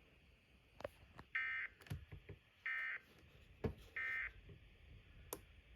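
Three short electronic beeps, evenly spaced a little over a second apart, each a buzzy tone, with a few faint clicks between them.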